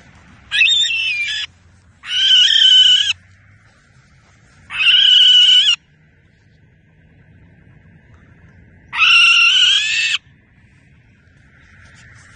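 Barn owl screeching in defence while fighting a hawk: four harsh, drawn-out screeches of about a second each, the last after a pause of a few seconds.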